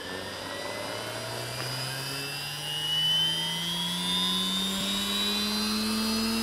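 Diabolo 700 radio-controlled helicopter spooling up on the ground before lift-off, its whine and rotor sound rising steadily in pitch, louder from about three seconds in.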